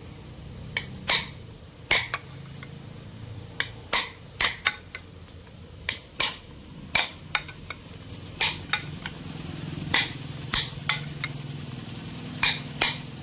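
Hammer striking a cold chisel against the ceiling fan's metal bearing housing, about twenty sharp taps at irregular intervals. It is staking (punching) the bearing seat to tighten a loose bearing.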